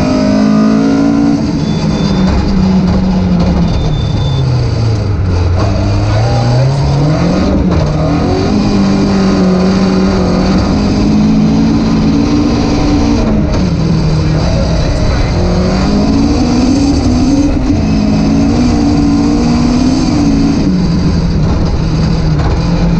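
Rally car engine heard from inside the cockpit at stage pace, revs rising and falling through gear changes and corners. The revs drop away to a low note about five seconds in, then climb again, over steady tyre and road noise.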